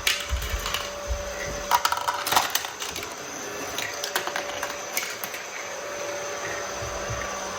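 Marbles clicking and rattling through a plastic marble run, with a dense cluster of clicks about two seconds in, over a steady hum.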